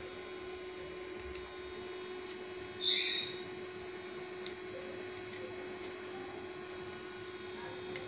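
Quiet workshop room tone with a steady low hum. One short high-pitched sound about three seconds in, and a few faint ticks after it.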